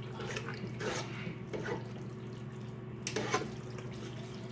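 Wet squelching and scraping of spaghetti noodles being stirred and tossed into tomato sauce in a pot, in several short strokes about a second apart. A steady low hum runs underneath.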